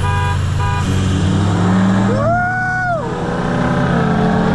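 Two short car-horn toots near the start, then a car engine revving hard under full acceleration from a standing start. The pitch climbs, holds high, and drops sharply about three seconds in at a gear change, then starts climbing again.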